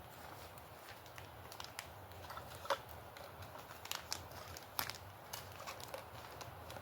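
Faint wood campfire crackling, with scattered sharp pops at irregular intervals.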